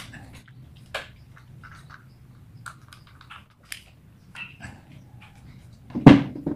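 Electric fan motor and its plastic parts being handled and fitted together: scattered small clicks and rattles, with a louder knock about six seconds in.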